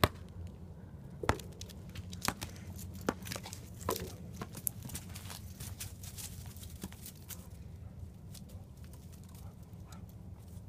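A dog scrabbling about on dry ground while playing with a light-up ball: scattered sharp clicks and crackling rustles, most of them in the first few seconds, over a steady low hum.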